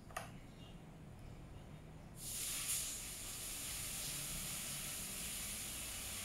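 A short click just after the start, then a steady hiss that starts abruptly about two seconds in and keeps going, mostly high in pitch.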